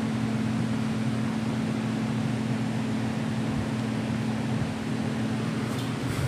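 Steady hum and rush of air from a newly installed shop air-conditioning system, its furnace blower pushing a lot of air out through the ductwork.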